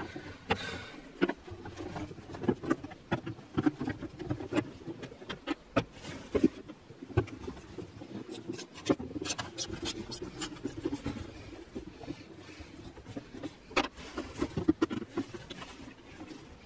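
Screwdriver clicking and scraping against the handle screws and hard plastic shell of a suitcase as the handle is unscrewed, a string of sharp, irregular clicks, with the fabric lining rustling as it is held back.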